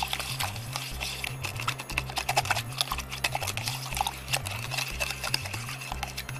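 Thin stick stirring sauce into water in a plastic cup, with many quick clicks and taps against the cup's sides. Background music with a steady bass line underneath.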